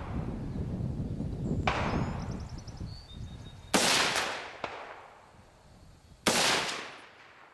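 Three rifle shots about two seconds apart, the last two the loudest, each with a long echoing tail. A low rumble runs under the first half.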